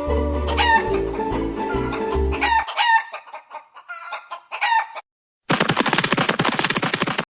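Chickens calling and a rooster crowing, several calls one after another, over guitar music that stops about a third of the way in. After a short gap, a fast, even rattling clatter starts near the end.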